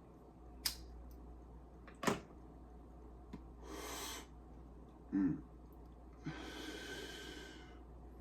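Two sharp clicks, then a breathy exhale, a short grunt-like voice sound and a longer breathy exhale.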